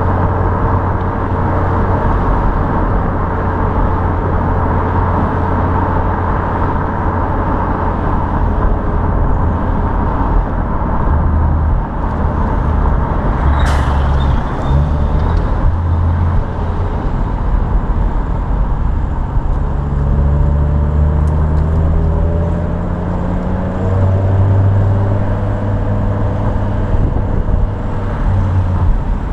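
BMW M5 E61's 5.0-litre V10 exhaust through its standard rear silencers, running at low revs with a steady low drone while the car is driven along. About halfway through there is a short sharp noise. In the second half the pitch rises gently a few times as the car picks up speed.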